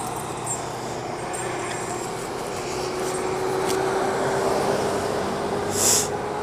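Yamaha sport motorcycle idling at a standstill, with a faint steady whine that slowly rises in pitch. A short hiss sounds near the end.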